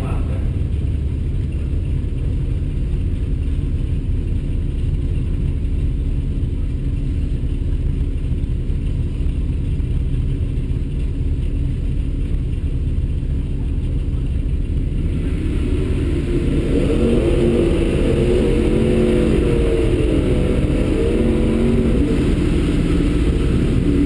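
Car engine idling steadily, a low rumble heard from inside the cabin. About two-thirds of the way through, a louder wavering engine note joins in over the idle.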